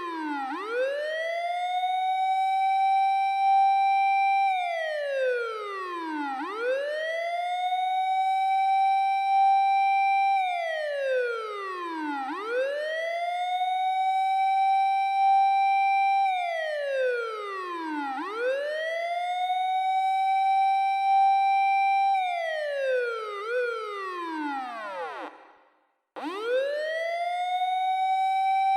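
Japanese fire engine siren played from a siren app, cycling about every six seconds: it rises from a low wail to a high held tone, holds for about two seconds, then falls. Near the end one fall wavers and the sound cuts out for a moment before the next rise starts.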